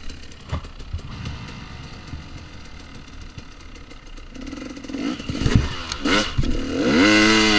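2014 KTM 250 XC-W two-stroke dirt bike engine, running low at first with clattering over rough ground, then revving hard with a steeply rising pitch over the last few seconds.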